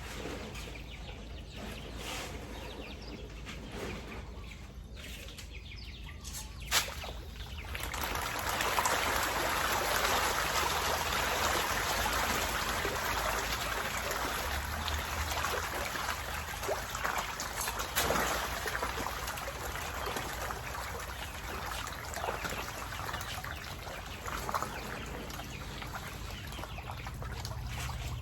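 Water splashing and churning in a catfish pond, starting about eight seconds in and running on: catfish thrashing at the surface for thrown feed.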